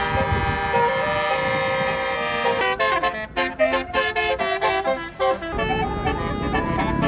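Basuri telolet multi-tone musical air horn on a tour bus playing a tune: a held chord of several notes, then a quick run of short notes from about three seconds in, then another held chord.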